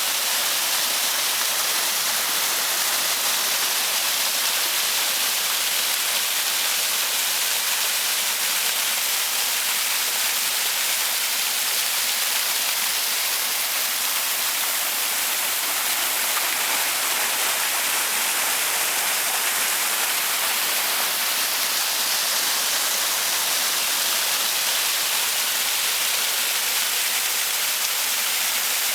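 Waterfall rushing with a steady, even hiss.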